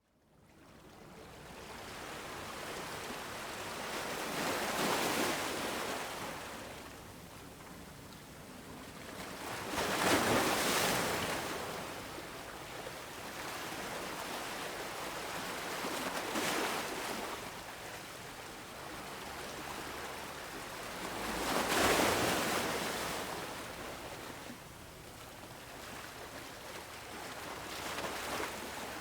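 Ocean waves breaking on a shore: a steady wash of surf that swells into louder crashes about every five to six seconds, fading in at the start.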